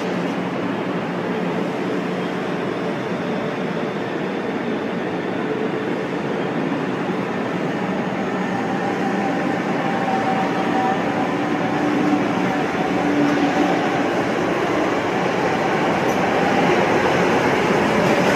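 Manila LRT Line 1 third-generation light rail trains running through the station: a steady rumble of wheels and running gear, with a faint steady tone in the middle, growing slightly louder near the end as the second train draws in alongside the platform.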